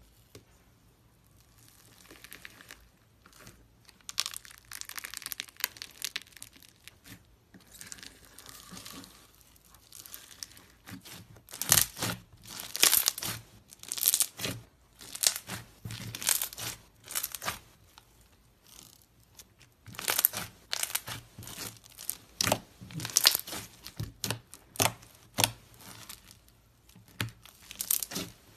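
Crunchy foam-bead slime being squished, kneaded and pressed by hand, making irregular runs of crackling and popping. It is faint for the first few seconds and gets louder and denser through the middle.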